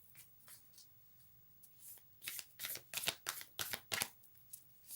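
A deck of oracle cards being shuffled by hand: a few faint card sounds at first, then from about two seconds in a fast run of sharp card slaps, four or five a second.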